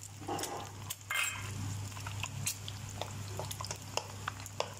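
Two eggs and garlic frying in hot oil in a nonstick wok, crackling with scattered pops over a steady low hum, with a brief louder sound about a second in. Near the end a wooden spatula begins stirring and breaking up the eggs.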